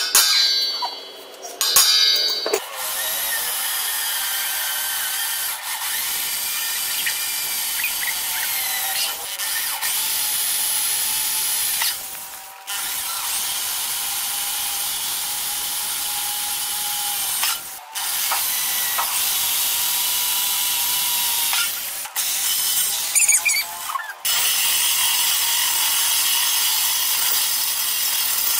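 Two ringing metal strikes on a centre punch, then an electric hand drill running steadily as it bores holes in a steel bar frame, with short stops about 12, 18, 22 and 24 seconds in.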